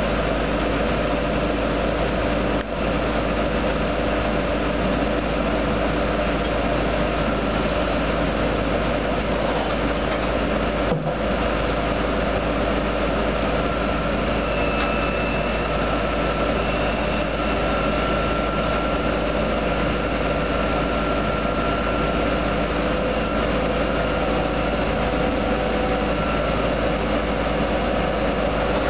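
A drilling rig and its mud shaker system running together: a loud, steady engine drone with a faint high whine in it.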